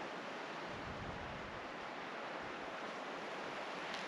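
Steady outdoor rushing noise, with a low rumble of wind on the microphone about a second in.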